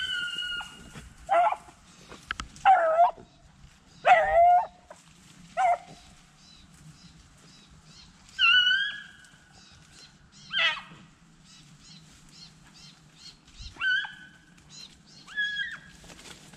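Beagles baying on a rabbit's trail: about nine barks and longer held bawls at uneven intervals, some pitched higher than others.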